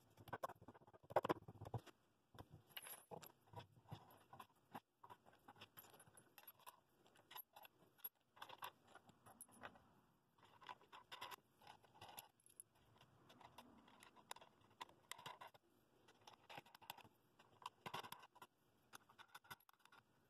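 Faint, irregular clicking and clinking of steel washers, wooden spacer blocks and wing nuts being slipped onto the threaded rods of a bowl press and turned down by hand, with a louder knock about a second in.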